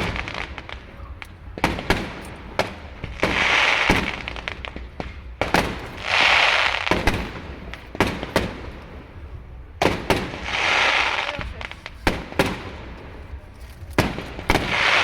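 Fireworks going off: a hissing rush about every three to four seconds, each lasting a second or so, with sharp cracks and pops in between.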